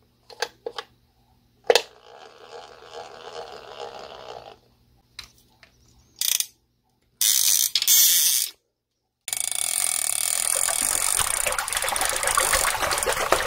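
Mechanical clicking and ratcheting in separate bursts: a few sharp clicks, a softer rattling stretch of a couple of seconds, a short loud rasp, then a long loud ratcheting rattle that cuts off suddenly near the end.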